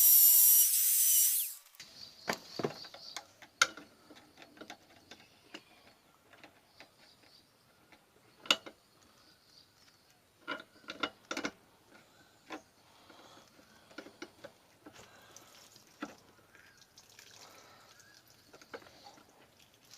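A loud, high-pitched grinding hiss with a wavering whistle lasts about a second and a half. It is followed by scattered sharp metallic clicks and scrapes as a screwdriver works in a slot cut into a seized tail-light bolt. The soft metal gives way and the bolt does not turn.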